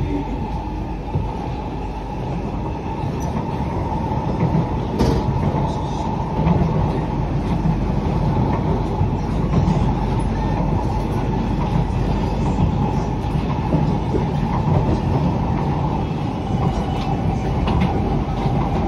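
Cabin running noise of a Kawasaki–CRRC Qingdao Sifang C151B electric multiple unit travelling at speed: a steady rumble of wheels on rail under a steady tone, with a few short sharp clicks.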